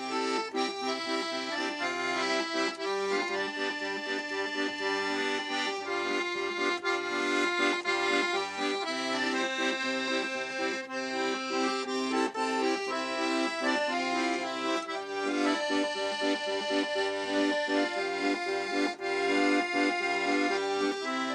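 Soprani piano accordion playing a traditional Sicilian tune: a melody over steady held chords.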